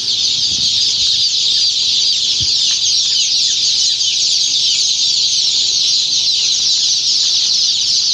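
Hundreds of day-old chicks peeping all at once: a dense, continuous high chorus of overlapping chirps.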